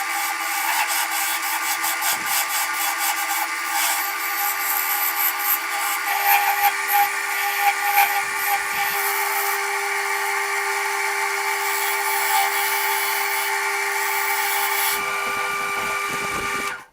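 Wood lathe running with a steady motor hum while the spinning birch blank is worked, giving a scraping, rasping sound of tool or abrasive on wood. It cuts off suddenly near the end.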